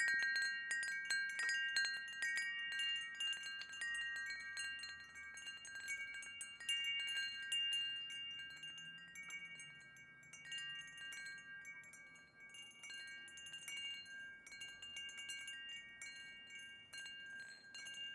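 Chimes tinkling: many light, irregular strikes set several high tones ringing. Loudest at the start, softer about two-thirds of the way through, then picking up again.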